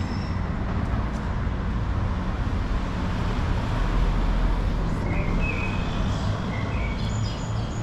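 Street traffic: a steady rumble of passing cars and other motor vehicles, swelling about four seconds in as one goes by, with a few short high chirps about five seconds in and again near the end.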